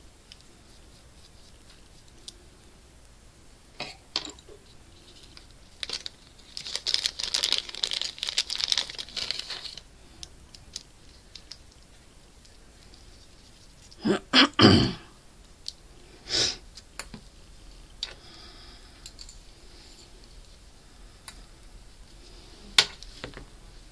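Handling sounds of knitting with metal needles and yarn: scattered soft clicks and a few seconds of rustling, with a brief louder burst about fourteen seconds in.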